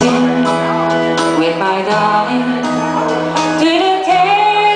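Live country-rock band music with guitar, and a woman singing into the microphone.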